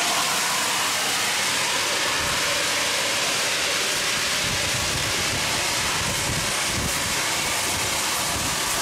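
Steam train making a steady rushing hiss, with low irregular thumps underneath from about two seconds in.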